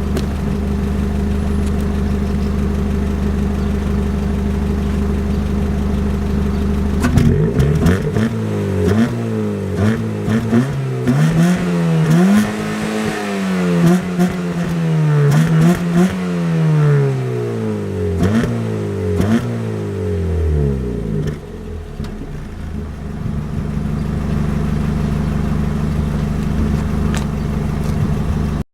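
Ford Fiesta Mk7's engine idling steadily, then revved up and down several times for about fourteen seconds before it drops back to a steady idle.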